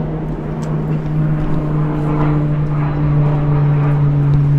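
A steady, low mechanical drone holding one pitch, with fainter higher overtones.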